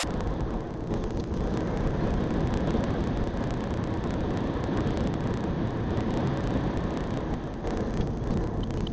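Road noise inside a moving car, heard through the dashcam microphone: a steady low rush of tyres on cracked, patched pavement and wind, with many faint ticks running through it.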